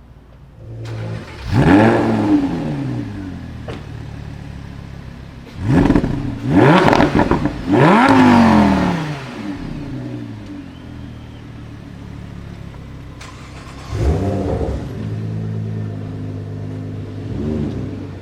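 A sports car's engine revved hard from idle several times, each rev rising quickly in pitch and falling back: one about a second and a half in, a close run of three around six to nine seconds, and two shorter blips near the end.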